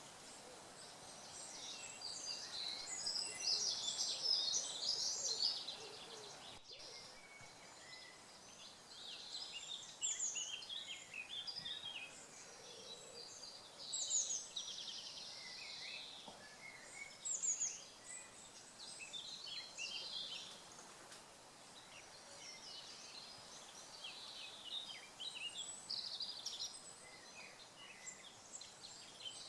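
Several songbirds singing at once, a dense chorus of overlapping whistled and trilled phrases, with some louder nearby bursts.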